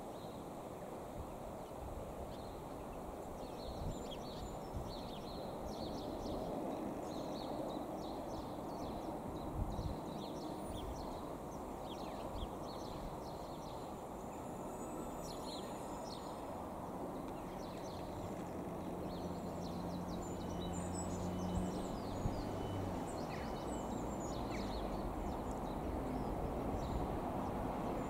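Class 150 Sprinter diesel multiple unit approaching slowly, a low rumble of engines and wheels that grows a little louder, with a steady engine drone coming in about two-thirds of the way through. Birds chirp over it.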